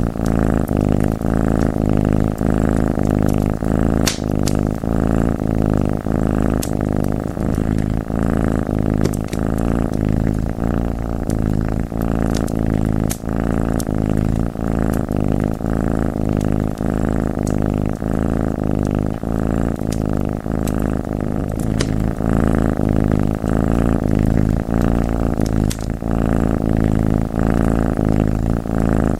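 Domestic cat purring loudly and steadily, close up, with a few sharp crackles from a wood fire scattered through it.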